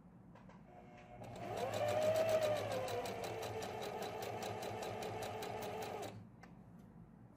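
Electric domestic sewing machine stitching through thin fabric. It starts about a second in, its motor pitch rising as it gets up to speed and then running steadily with a rapid, even ticking of the needle strokes, and it stops abruptly about six seconds in.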